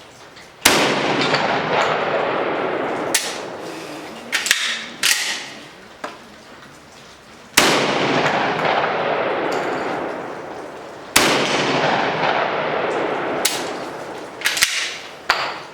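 Benelli M4 12-gauge semi-automatic shotgun firing slugs: three shots, spaced several seconds apart, each followed by a long echo that fades over a few seconds. Several smaller sharp clacks fall between the shots.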